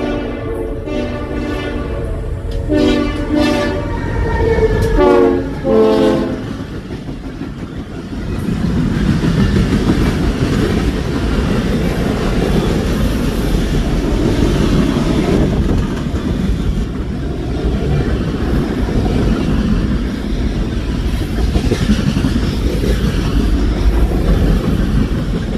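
Freight locomotive's air horn sounds a rhythmic string of short blasts during the first six seconds. From about eight seconds in, the freight cars pass close by, with a steady rumble and clatter of wheels on the rails.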